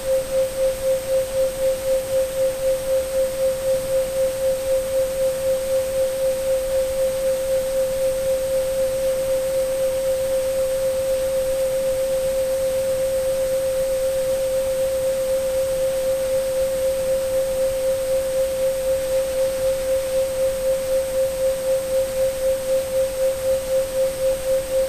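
Steady 528 Hz sine tone with a regular throb a few times a second, over an even hiss of pink and white noise. A faint high tone sits above it.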